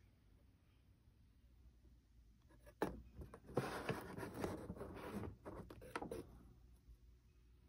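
Handling noise from multimeter test probes and their leads being moved over a pedal circuit board and desk. A sharp click comes about three seconds in, followed by a few seconds of irregular scraping and rubbing.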